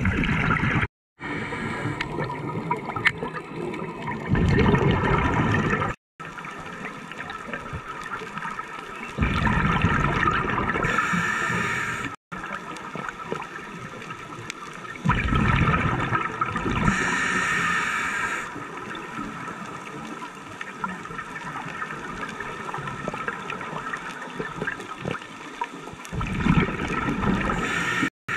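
Scuba diver breathing through a regulator underwater: loud surges of exhaled bubbles every few seconds, with a steadier hiss and gurgle of water and air between them.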